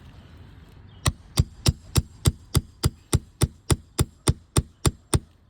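Roofing hammer striking fifteen quick, evenly spaced blows, a little over three a second, starting about a second in. It is working a nail loose from under a brittle three-tab asphalt shingle.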